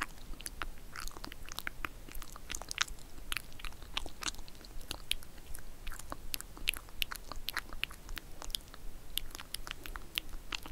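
Close-miked ASMR mouth sounds: soft, wet lip and tongue clicks, several a second at irregular spacing.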